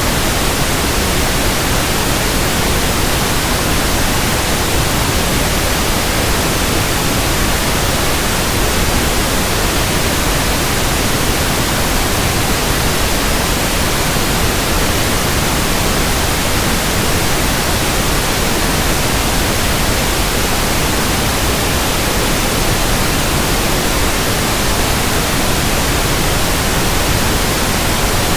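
Pink noise test signal for measuring a sound system's frequency response: a steady, even hiss spread across the whole range from deep bass to high treble, unchanging throughout.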